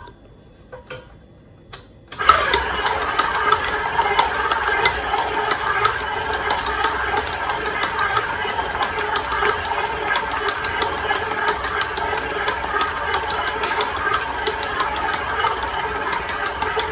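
Commercial planetary dough mixer starting up about two seconds in, then running steadily at first speed with its dough hook kneading a stiff bun dough, the motor's hum overlaid with many fine rattling ticks.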